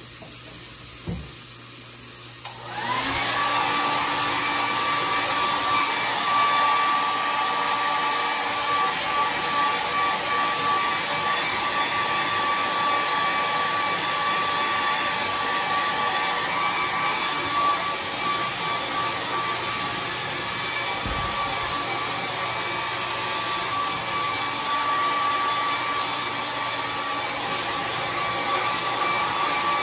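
A compact Conair hair dryer is plugged in with a couple of clicks, then switched on about three seconds in. It runs steadily: a loud rush of air with a steady whine over it.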